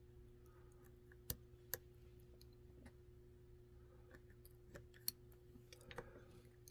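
A few faint, sharp clicks of small lock pins being handled and dropped into the pin chambers of a Master Lock deadbolt's cylinder while it is being repinned, over a steady faint hum.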